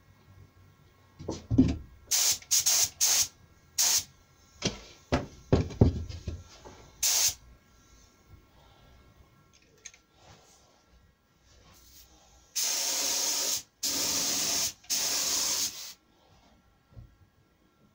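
Gravity-feed spray gun spraying white PU lacquer paint, its fan pattern and pressure turned down for the drawer's corners. It hisses in a string of short trigger pulls, then in three longer passes of about a second each near the end, with a few low thuds in between.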